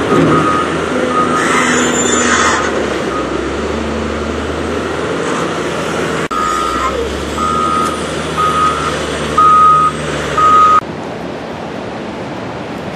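A vehicle's reversing alarm beeping about once a second over a low engine rumble. It cuts off about 11 seconds in, leaving a steady rushing hiss.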